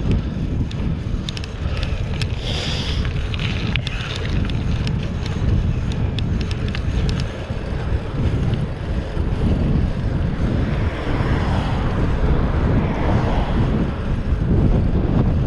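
Wind buffeting the microphone of a camera riding along on a moving bicycle: a steady, dull rush of wind noise, with a few light clicks and rattles in the first four seconds.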